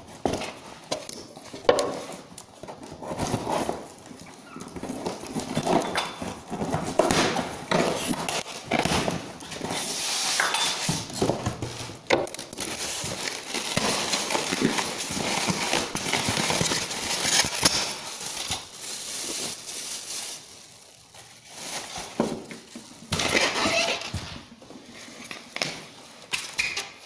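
Unboxing sounds: a cardboard box and white foam and plastic packing being handled and pulled out, with rustling and crackling and many scattered knocks, busiest in the middle.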